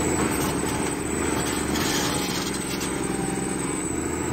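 Volvo 290 crawler excavator's diesel engine running steadily, with its control solenoid working again so the machine responds. The low hum drops for a couple of seconds in the middle, then returns.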